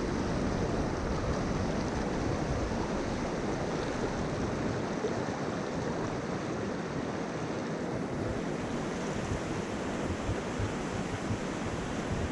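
Steady rushing of a river flowing, with wind buffeting the microphone in uneven low rumbles.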